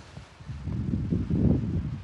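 Wind buffeting the microphone: a ragged low rumble that gets louder about half a second in.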